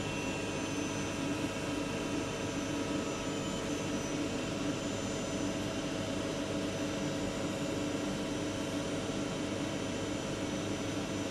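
CNC lathe running with its spindle turning: a steady machine hum with several steady tones, unchanging throughout.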